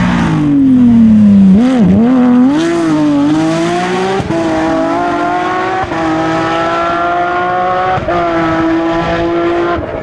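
Porsche 997 GT3 rally car's flat-six engine at full race volume: its pitch falls as the car comes past, wavers briefly, then climbs in steps as it accelerates hard through the gears, with sharp upshifts about four and six seconds in.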